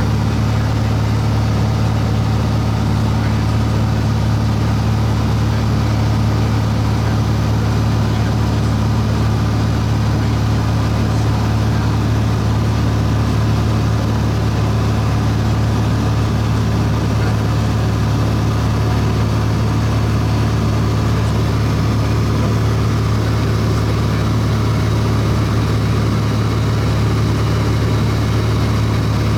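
Light aircraft's piston engine and propeller running steadily at cruise, heard from inside the cabin: a loud, even drone with a strong low hum that does not change.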